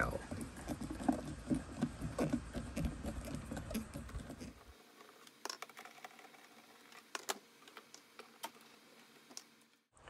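A Phillips screwdriver backs a trim-panel screw out while a plastic pry tool holds the head up, making a run of small scraping clicks. About four and a half seconds in it drops much quieter, leaving a few scattered sharp clicks.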